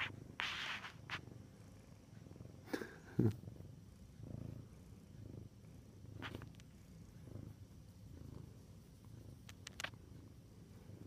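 Domestic cat purring close up while its chin is scratched: a low purr that swells and fades about once a second with its breathing. A few light clicks and a soft bump about three seconds in come through over it.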